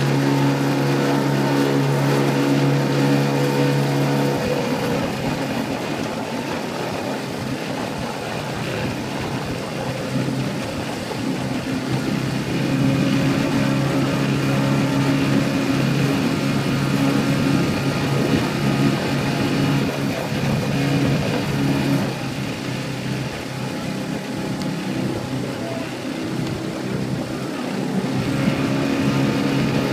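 Outboard motor of a small aluminium launch running at a steady cruising speed, its hum swelling and easing a few times over a steady rushing hiss.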